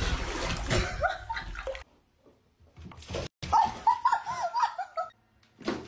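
Water splashing as a cat scrambles at the edge of a filled bathtub, then a quick run of laughter past the middle.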